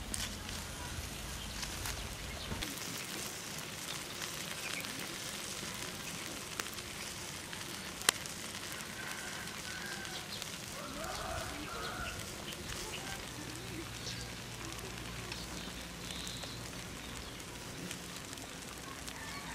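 Glazed pig's head roasting over charcoal on a wire grill: a steady sizzling hiss with scattered crackles, and one sharp pop about eight seconds in.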